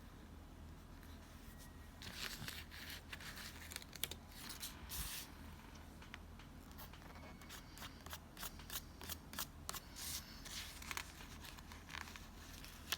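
Scissors snipping through paper for journal layout, a run of short quick cuts in clusters starting about two seconds in, over a faint steady room hum.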